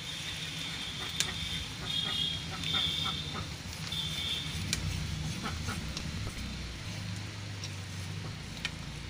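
Fish being scaled and cut on a boti blade, with scattered scraping clicks. Short high-pitched tones come and go in the first few seconds over a steady low hum.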